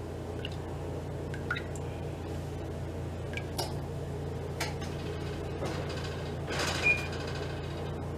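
Silicone spatula stirring a hot lye-and-oil liquid soap mixture in a glass measuring jug: a few faint taps and scrapes against the glass, with a slightly louder knock or scrape about seven seconds in, over a steady low hum.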